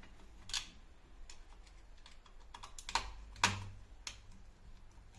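Irregular clicks and light knocks of hand tools and plastic parts as an old wall light switch is taken off its box, with the loudest knock about three and a half seconds in.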